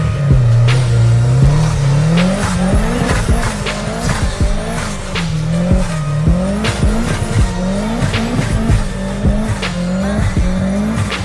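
A car engine revving up and falling back again and again, with its tyres spinning and squealing, typical of a car stuck in snow.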